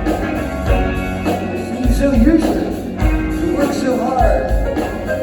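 Rock band playing live, with heavy low drum beats about every second and a voice singing over the music.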